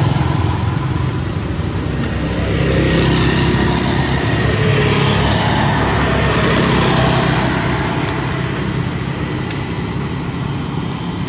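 Road traffic noise: a steady low engine rumble, swelling a few times as vehicles pass.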